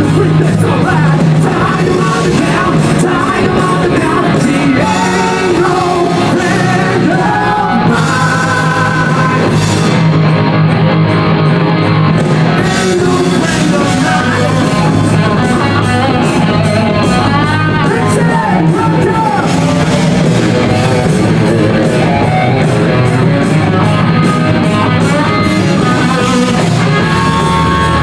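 Rock song with a male singer over heavy guitars and drums.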